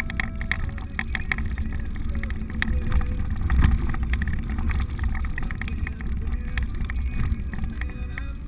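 Jeep driving slowly over a rough dirt trail, heard from inside the cab: a steady low rumble from the engine and tyres, with frequent short clicks and rattles from the body as it bumps along, and a louder jolt about three and a half seconds in.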